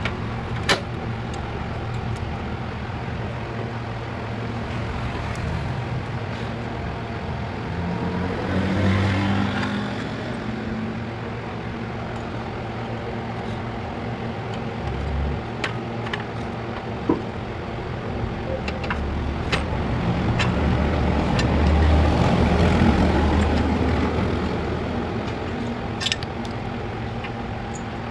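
Vehicle engine running steadily through its exhaust silencer, growing louder twice, about a third of the way in and again past the middle, with a few scattered sharp clicks.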